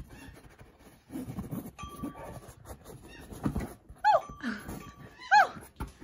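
Pet parrot hidden under a blanket giving two short chirping calls, one about four seconds in and one near the end, as it bites at a butter knife. Soft knocks and fabric rustles come before the calls.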